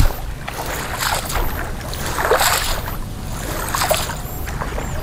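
Water splashing and sloshing in several short rushes about a second apart, over a steady low hum.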